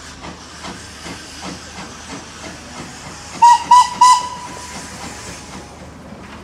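Steam locomotive whistle giving three quick, short toots about three and a half seconds in, the last one trailing off faintly, over a steady hiss of steam.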